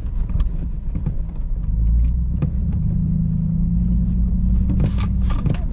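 2021 Chevrolet Silverado Trail Boss pickup driving on a dirt road: a steady low engine and tyre rumble, with an even engine hum coming up in the middle and scattered clicks and rattles, bunched near the end.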